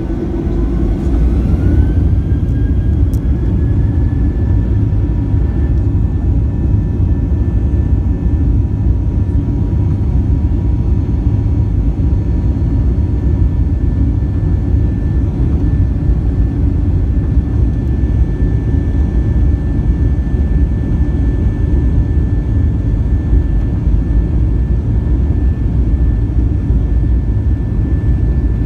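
Boeing 737 jet engines heard from inside the cabin, spooling up for the takeoff roll. A rising whine over the first couple of seconds settles into a steady held whine over a loud, even rumble.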